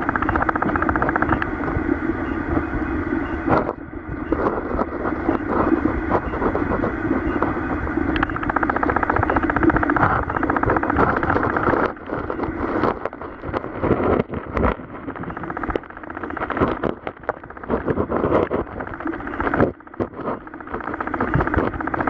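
Underwater recording in a shallow stream: the muffled rush and gurgle of flowing water around the submerged camera, with a fine crackle. It is steady at first, then from about halfway becomes uneven, with sudden dips and knocks.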